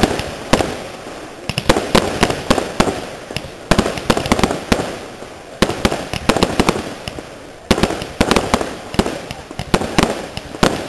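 Fireworks display: dense crackling and sharp bangs as comets rise and burst, coming in fresh volleys about every two seconds.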